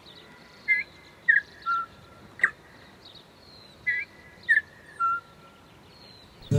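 Bird calls: short whistled notes in two similar phrases of three, about three seconds apart, with a single sharp note between them and faint high twittering behind.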